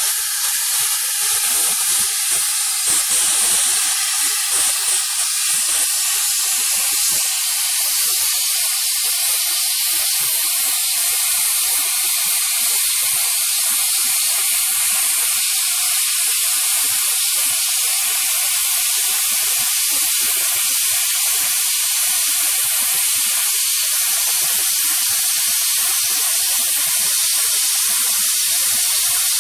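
Plasma cutter cutting through a metal plate: a loud, steady hiss of the cutting arc and air jet.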